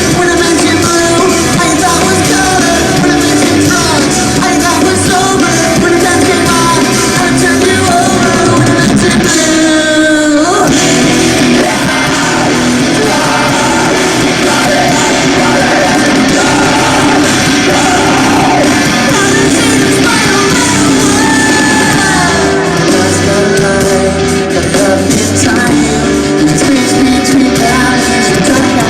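Rock band playing live with a singer. There is a brief break about ten seconds in.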